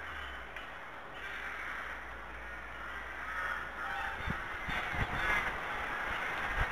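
Birds calling with crow-like cawing, a steady chorus that grows stronger after about three seconds, with a few low thumps in the second half.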